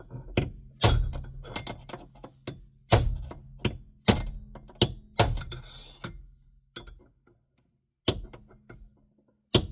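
Ball-peen hammer striking a punch against a C5 Corvette's heated, seized steering wheel to shock it loose from the column. About five hard metallic blows with lighter taps between, each followed by a low ringing, then a short pause near the end.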